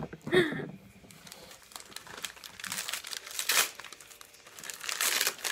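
Paper wrapping crinkling and rustling as a wrapped Christmas ornament is unwrapped by hand, in uneven spells, loudest about halfway through and again near the end.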